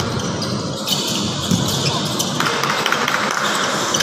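Basketball game sounds: a ball bouncing and knocking on the court floor amid the voices of players and spectators.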